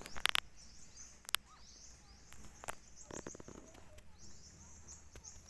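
Faint high-pitched chirping that repeats throughout, with a few sharp clicks and taps in the first three seconds or so.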